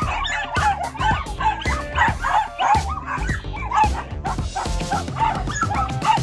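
A pack of small dogs yapping and barking, many short overlapping yaps several a second, over background music with a steady beat.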